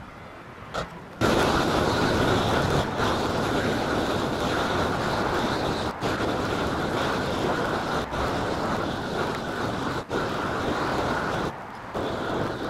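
Propane roofing torch opened up to full flame about a second in, then burning with a steady loud rush as it heats a rubber-modified bitumen torch-down roll to melt it onto the roof. The flame dips briefly near the end and picks up again.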